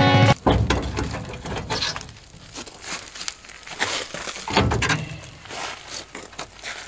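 Irregular knocks, scrapes and crinkling as a rusted running board is worked loose and lifted off an old truck, with cardboard rustling underfoot. A dull thump comes about half a second in and another near five seconds.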